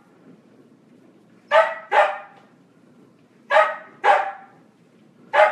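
A dog barking in pairs: two barks about a second and a half in, two more about three and a half seconds in, and a fifth near the end.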